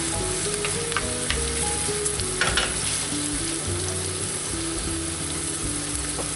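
Cubes of pork neck and chopped onion sizzling in hot pork lard in a frying pan, stirred with a wooden spatula. There are a few light clicks from the spatula about one to two and a half seconds in.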